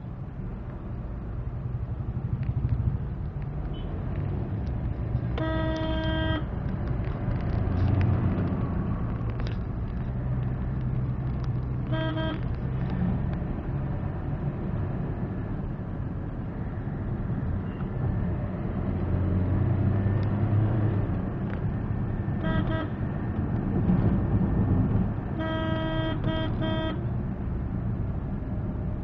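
Car engine and tyre noise heard from inside the cabin of a moving Maruti Suzuki Swift, a steady low rumble. A car horn sounds a long toot about five seconds in, a short toot near twelve seconds, and runs of quick toots near the end.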